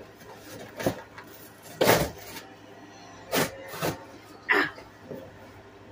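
Cardboard box being pulled and torn open by hand: about five short ripping and scraping sounds a second or less apart, the loudest and longest about two seconds in. The box is hard to open.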